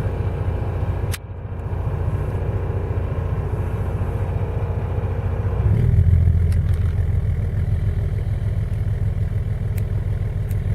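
DAF 575 six-cylinder diesel engine idling steadily, with a dry exhaust note and no water splash because the engine is keel-cooled. There is a brief dip about a second in, and from about six seconds in the low hum grows louder.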